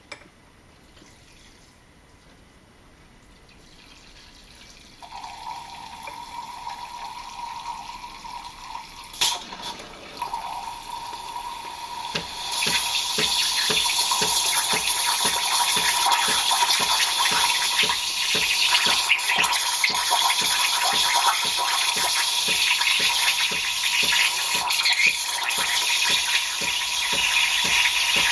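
Breville BES870XL espresso machine running: a steady hum starts about five seconds in, then from about twelve seconds a loud, steady hissing rush of water or steam.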